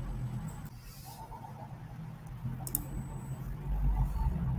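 Low steady room hum with a couple of faint computer mouse clicks.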